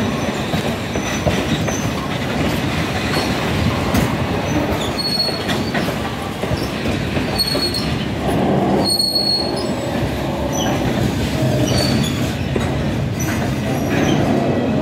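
A freight train's covered wagons rolling past, their wheels clacking over rail joints, with brief high-pitched wheel squeals several times. The last wagon and the brake van go by about eight seconds in.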